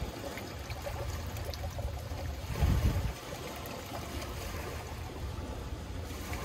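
Water trickling as it is poured from a Stanley Trigger Action travel mug into a metal camp cup, over a steady low rumble, with a brief louder low rumble about two and a half seconds in.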